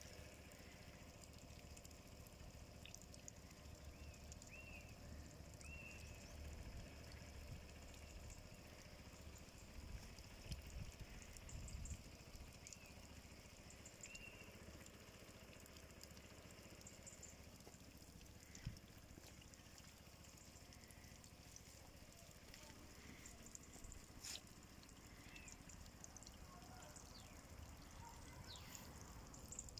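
Near silence outdoors: faint bird chirps now and then over a low wind rumble on the microphone.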